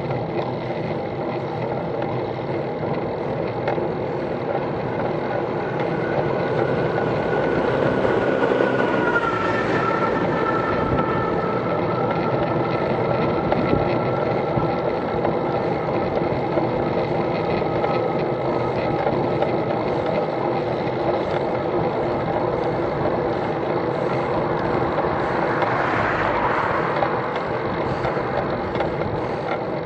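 Steady wind and road noise from riding a bicycle along a road, with a motor vehicle passing about nine seconds in, its sound dropping in pitch as it goes by. Another vehicle swells up near the end.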